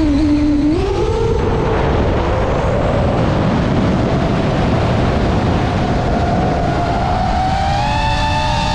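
DJI FPV drone's motors and propellers whining in flight. The pitch falls at the start, climbs about a second in and rises again near the end as the throttle changes. Under it runs a steady low rumble of wind on the camera's microphone.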